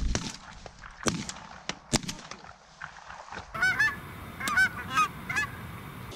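Shotgun fired three or four times in the first two seconds, the first shot the loudest. From about three and a half seconds in, a flock of Canada geese honking overhead, a string of repeated honks.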